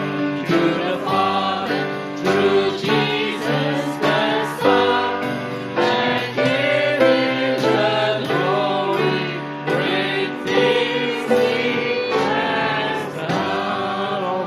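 Live worship song: voices singing together over piano and drums with a steady beat.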